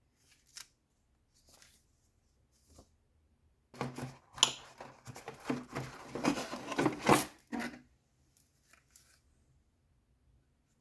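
Keyboard packaging being handled and unwrapped: a few faint rustles and clicks, then about four seconds of dense crinkling and rustling in the middle.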